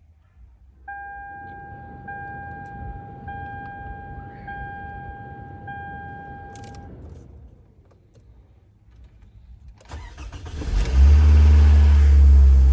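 2009 Toyota Camry with the ignition switched on: a dashboard warning chime beeps in a steady run for about six seconds, then the starter clicks and the engine cranks and catches about ten seconds in, running loud as it fires up on its first start after a fresh oil fill.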